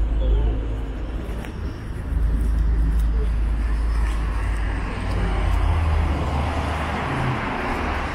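City street ambience: road traffic with a deep, steady rumble and a rushing noise that grows louder about halfway through, with voices of passers-by mixed in.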